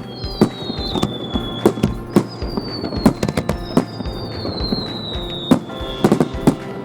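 Fireworks display: aerial shells and firecrackers bursting in quick, irregular bangs, with several whistling shells whose whistles fall slowly in pitch. Music plays underneath.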